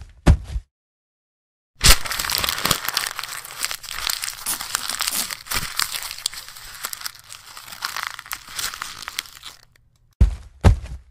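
Dense crinkling, crackling noise full of small clicks, lasting about eight seconds and starting about two seconds in. A few short thuds come just before it, and three more come near the end.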